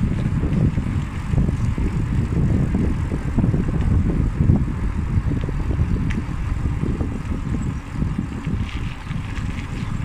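Wind buffeting the microphone of a camera on a moving bicycle: a loud, uneven low rumble, with a few faint ticks.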